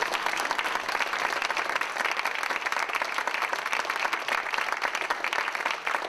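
Large audience applauding steadily.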